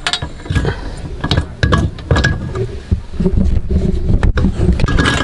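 Irregular clicks, knocks and rattles of a metal short-shifter assembly and its cables being handled and positioned in the console, with bumps from a hand-held camera.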